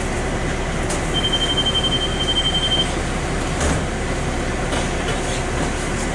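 Cabin noise of a 2001 New Flyer D40LF diesel transit bus idling while stopped, heard from inside. About a second in, a steady high-pitched tone sounds for just under two seconds.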